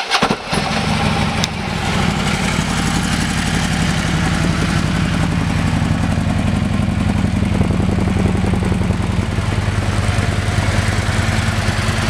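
2013 Harley-Davidson Road King's air-cooled V-twin, breathing through a Vance & Hines exhaust and a Screamin' Eagle air cleaner, catching just after it starts and settling into a steady, loud, lumpy idle.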